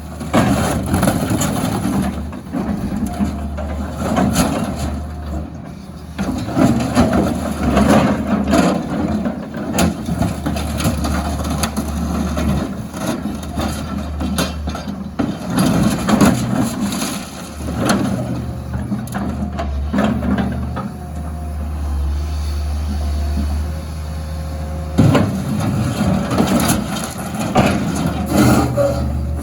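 Excavator engine running under load, with repeated crunching and cracking as it crushes dumpsters.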